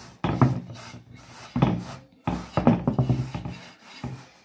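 A hand pressing and rubbing harcha dough flat across an oiled frying pan to spread it to the edges. The sound comes as about four rubbing, scraping strokes.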